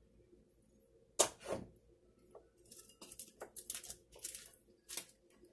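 Glass bowls being handled on a kitchen counter: a sharp knock about a second in, then a run of short scrapes and clatters.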